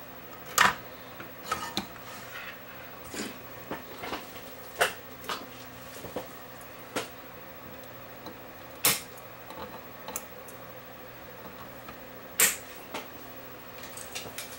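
Irregular sharp clicks and taps of a small metal hand tool working on a circuit board as a new capacitor is fitted, over a faint steady hum.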